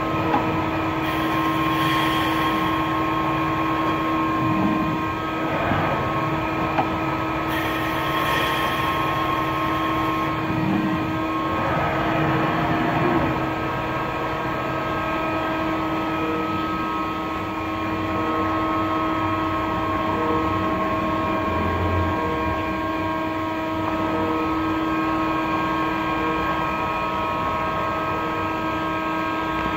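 Mazak CNC lathe running with its spindle turning a crankshaft: a steady mechanical hum made of several constant tones. Two short spells of hiss join it, about a second in and again about eight seconds in.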